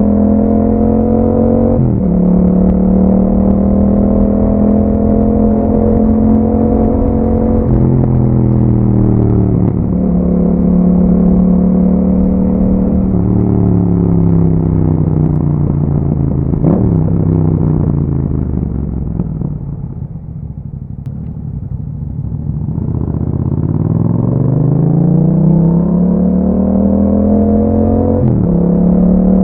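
2021 Yamaha MT-07's 689 cc parallel-twin engine through an Akrapovic exhaust with dB killers fitted, on the move: revs climb and drop through several gear changes, fall away to low revs as the bike slows near the middle, then build again with another shift near the end.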